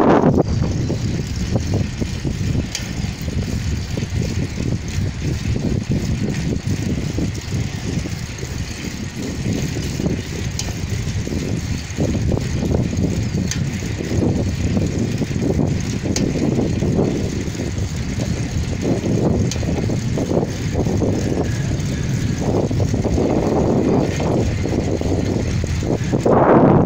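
Wind buffeting a phone's microphone and tyres rolling on asphalt while riding a bicycle: a steady low rush that swells now and then, with no engine sound.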